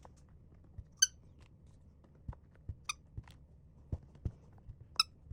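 A squeaky dog toy squeezed three times, each a short pitched squeak, with soft knocks of the toy being handled in between.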